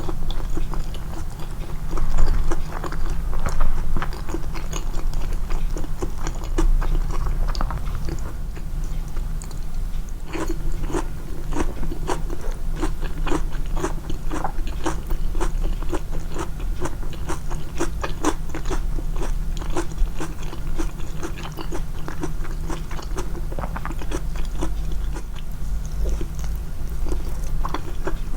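Close-miked, amplified biting and chewing of food, a steady run of small sharp crackles several times a second that is busiest in the middle stretch, over a constant low hum.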